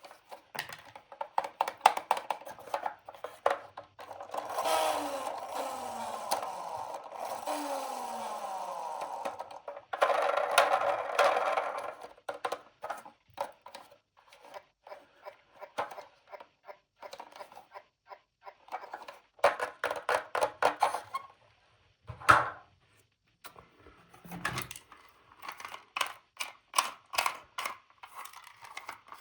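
Close-up handling of plastic toys and packaging: many small clicks and taps, with two longer stretches of scraping or rustling in the first half and a couple of louder knocks near the end.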